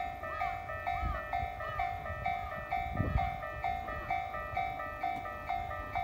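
Japanese railway level-crossing alarm ringing its repeating electronic two-tone bell, about two strikes a second. A brief low thud comes about halfway through.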